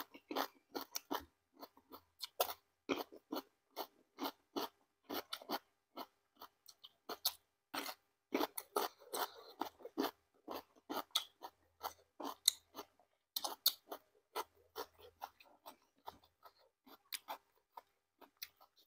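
Close-up chewing and crunching of food, a rapid irregular run of crisp crunches and mouth clicks.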